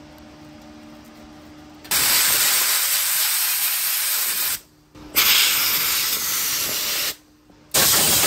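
Handheld siphon-feed sandblasting gun blasting rust off the steel brackets of a stainless grill trim piece. After a faint steady hum, its loud air-and-grit hiss comes in three bursts with short pauses between: the first about two seconds in, the last starting near the end.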